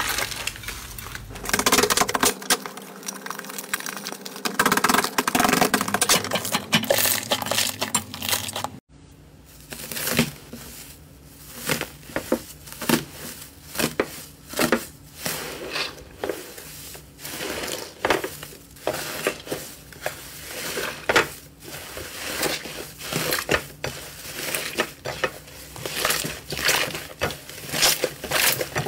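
Hands squeezing and kneading slime, a dense wet squishing and crackling. After a cut about nine seconds in, pink slime layered with gold foil is pressed and pulled apart, giving a run of short crackling, crinkling pops.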